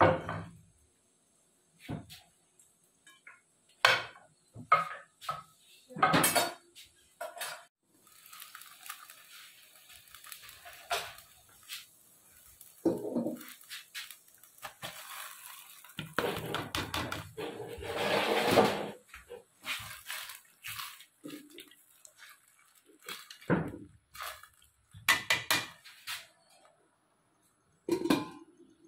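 Kitchen pots, dishes and utensils clinking and knocking in irregular strikes, with a busier stretch of clatter past the middle.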